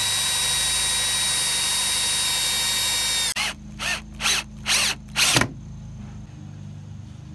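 Drill-driver running at steady high speed, a whine as it bores a pilot hole into a wooden batten, cutting off about three seconds in. It then drives a wood screw into the hole in five short bursts of the trigger.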